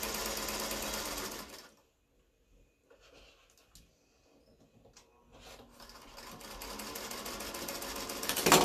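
Small black sewing machine stitching fabric at a steady run, stopping about a second and a half in. A few faint clicks follow during the pause. It starts again about five and a half seconds in and builds back up to speed, with one sharp, loud clack near the end.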